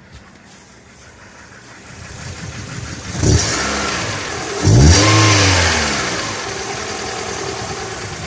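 Kia Rio JB petrol engine revved twice, about three and five seconds in, its pitch climbing and then falling back to a steady run. The owner takes the engine's noise for chattering fuel injectors and noisy hydraulic lifters.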